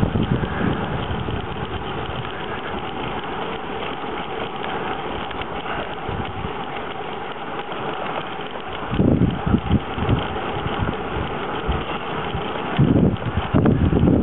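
Wind rushing over the microphone of a camera carried on a moving bicycle, mixed with the hiss of tyres on smooth asphalt. Gusts of low buffeting rumble come about nine seconds in and again near the end.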